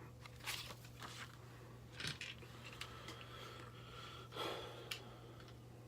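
Faint handling noises: a few light clicks and a soft rustle from a plastic toy figure and its parts being handled, over a steady low hum.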